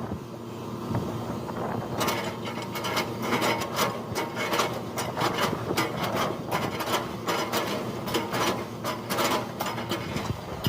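Hitachi excavator's diesel engine running steadily while its bucket chops a felled oil palm trunk into chips. A rapid, irregular crunching and cracking of the fibrous wood starts about two seconds in.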